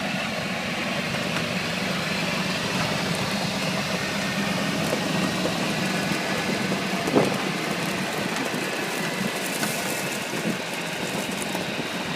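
Golf cart driving along, its motor running steadily, with one sharp thump about seven seconds in.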